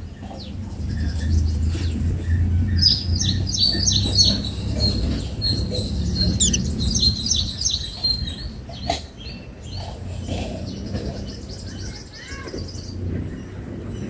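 White-eyes at the nest chirping: quick runs of short, high chirps, busiest from about three to seven seconds in as the nestlings are fed. A steady low rumble runs underneath.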